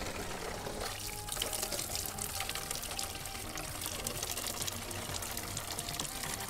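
Water from a wall tap running into a plastic soda bottle, filling it.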